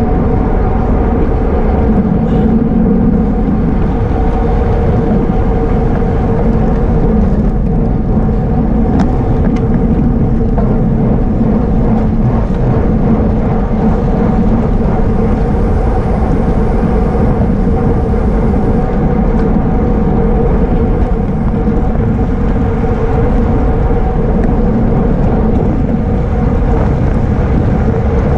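Loud, steady wind rush on the microphone of a camera riding on a racing bicycle at speed, with a constant hum underneath.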